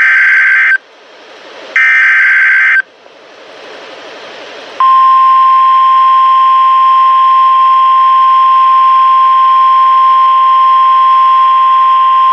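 NOAA Weather Radio Emergency Alert System signal. First come the last two bursts of the SAME digital header, harsh screeching data bursts about a second long each with radio hiss between them. About five seconds in, the steady 1050 Hz warning alarm tone begins and holds, the tone that marks a warning-level alert, here a severe thunderstorm warning.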